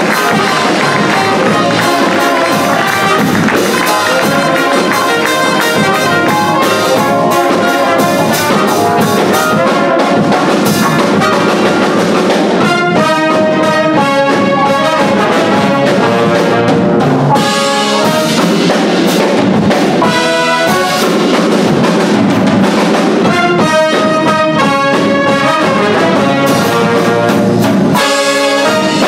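Live jazz big band playing a funk tune: a trumpet out front over the brass and saxophone section, electric bass and drum kit. The horns punch out groups of short repeated chord hits twice along the way.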